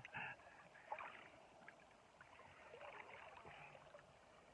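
Near silence: the faint steady rush of river water, with a few light clicks.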